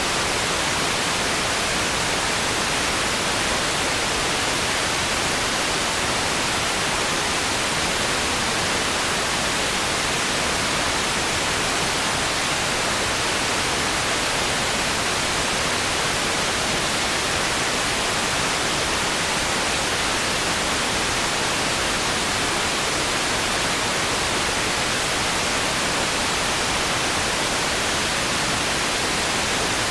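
Loud, steady static hiss, even from low to high pitches and unchanging throughout, with no other sound in it.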